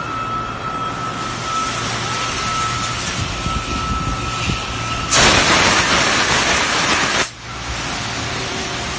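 Steady hum and hiss of CNC factory machinery. About five seconds in, a loud burst of hissing lasts about two seconds and cuts off suddenly.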